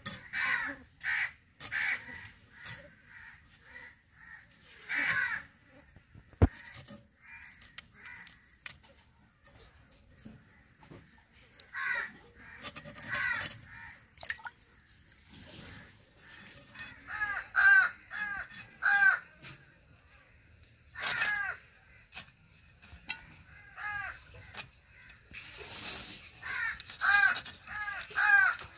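Crows cawing over and over, in runs of two to four calls that grow denser in the second half. Scattered short clicks and scrapes come from small fish being scaled and cut against an iron cutting blade, with one sharp click about six seconds in.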